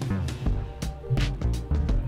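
Instrumental background music with a bass line and a steady drum beat.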